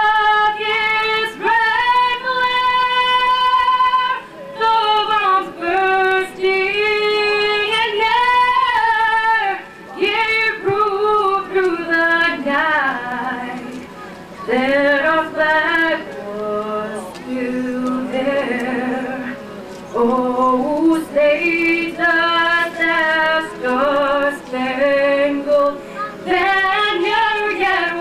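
A young woman singing solo into a handheld microphone, unaccompanied, holding long notes in phrases with short breaks between them.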